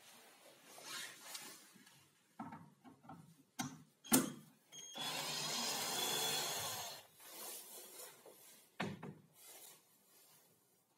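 Rubbing and light clicks of a bar clamp being adjusted against wood, with a sharp knock about four seconds in. Then a cordless drill runs for about two seconds, followed by a few scattered knocks.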